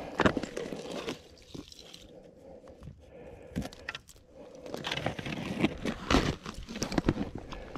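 Crunching snow and knocks from handling a wooden ice-fishing tip-up at the hole while the line is taken in by hand, in scattered clusters that are busiest at the start and again in the last few seconds.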